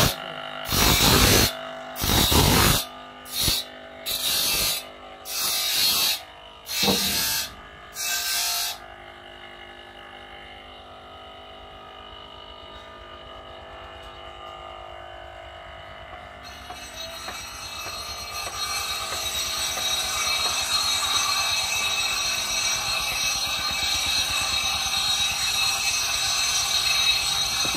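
Electric bench grinder sharpening the teeth of a sawmill band-saw blade: about seven short grinding bursts over the first nine seconds as teeth are pressed to the wheel. After that a quieter steady motor hum, and from about halfway a louder steady machine noise with several held tones.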